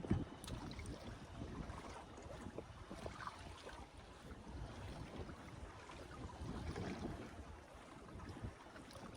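Wind on the microphone and water sloshing against a small fishing boat's hull, with one thump right at the start.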